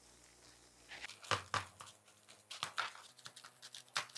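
Fingers pressing and patting damp rice-flour dough onto sal leaves: faint soft pats and leaf crinkles in an irregular scatter, starting about a second in.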